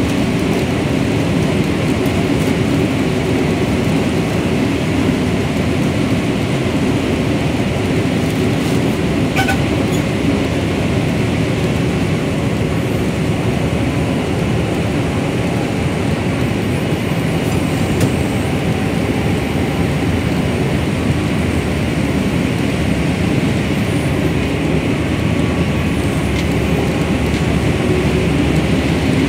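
Corn combine harvester running steadily while harvesting, its header taking in rows of dry corn stalks: a constant, even machine noise.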